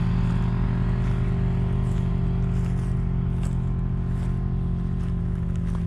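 An engine running steadily at an even speed, with a few faint clicks over it.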